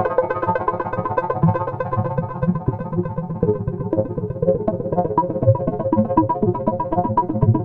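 Electronic music played on a 5U modular synthesizer, with fast repeating pitched notes over a low bass line.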